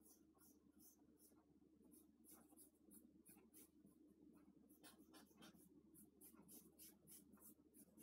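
Charcoal stick scratching on drawing paper in quick, short, irregular strokes, several a second, faint, over a low steady hum.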